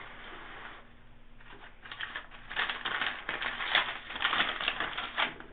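Shoebox being opened by hand: paper wrapping crinkling and rustling unevenly, with small clicks and taps, starting about two seconds in.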